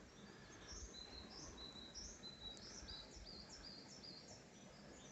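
Faint bird chirping: a series of short, high chirps repeated about twice a second.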